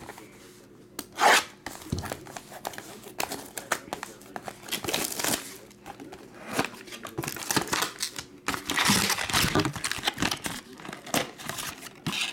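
Cellophane shrink wrap being torn off a Topps Inception trading-card box and crinkled, with the cardboard box being opened and handled: a string of ripping and rustling noises, the sharpest rip about a second in.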